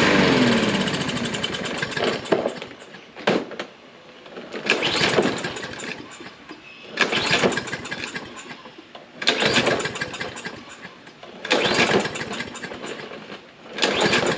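Briggs & Stratton lawn mower engine being pull-started over and over, about every two seconds. At the start it runs down with a falling pitch, and on each later pull it fires briefly and then dies away: it won't keep running on fresh gas, a sign of a gummed-up carburetor after years of storage.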